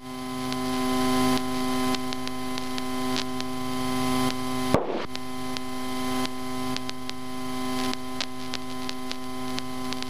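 Steady electrical hum made up of several stacked tones on the Cessna 152's intercom audio. Its loudness swells and drops back every second or so, and a single sharp click comes about five seconds in.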